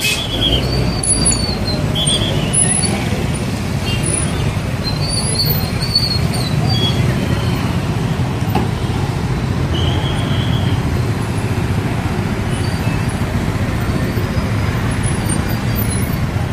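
Slow, congested road traffic of motorcycles, scooters, cars and a bus crawling past at close range, with engines running steadily. Short horn beeps sound near the start and again about ten seconds in.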